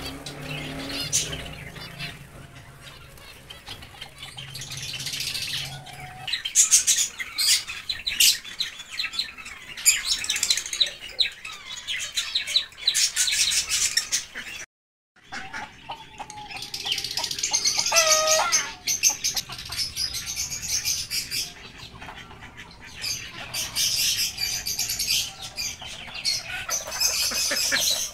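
Many small cage birds chirping together, with frequent wing flutters and one louder pitched call past the middle; the sound drops out completely for a moment about halfway.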